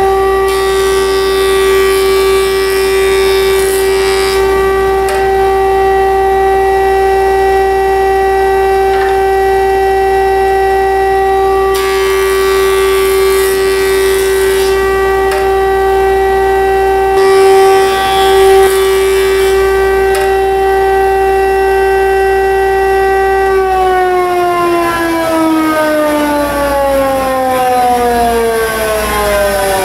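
Jointer running with a steady whine while boards are fed over the spinning cutterhead, adding three passes of rushing cutting noise. About six seconds before the end the machine is switched off and the whine falls steadily in pitch as it spins down.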